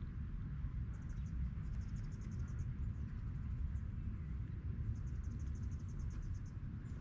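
Outdoor ambience with a steady low rumble of wind on the microphone. Twice, a high, rapid chirping trill runs for about a second and a half each time.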